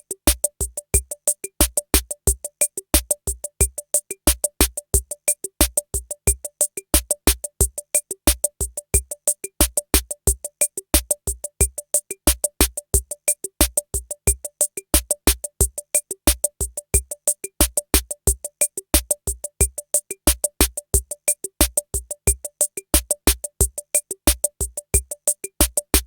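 Drum machine looping a rumba-style rhythm: groups of low kick-drum hits under a steady run of sharp, fast high ticks, with short pitched woody notes. The pattern repeats evenly throughout.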